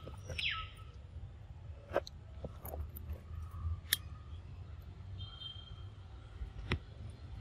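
A macaque biting and chewing a green mango: a few sharp clicks and smacks spaced a couple of seconds apart, with a short rising squeak near the start.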